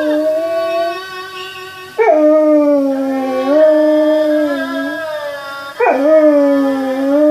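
Samoyed howling in long, drawn-out notes, singing along to music.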